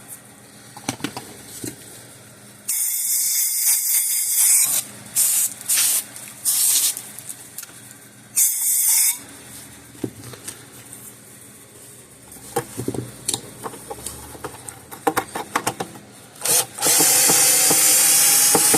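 Power drill-driver with a Torx bit whirring in several bursts, a second or two each, with a longer run near the end, as it works on stubborn Torx screws holding a plastic fence-charger case. Small clicks and knocks of handling come between the bursts.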